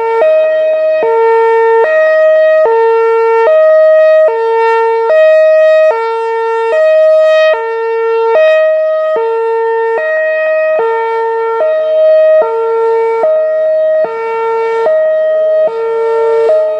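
Whelen Vortex R4 electronic outdoor warning siren sounding its hi-lo tone: two horn-like pitches alternating evenly, each held a little under a second.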